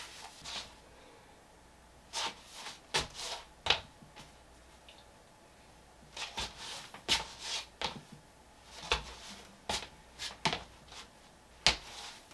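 A series of short, irregular rustles and light knocks, a dozen or so, with quiet room tone between them.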